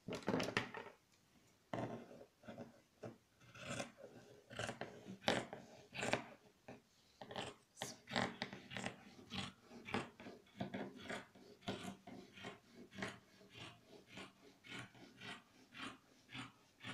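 Dressmaking scissors cutting through several folded layers of stretch lycra fabric on a table. It is a run of crisp snips, a few at first and then about two a second. The fabric rustles as the hand flattens it at the start.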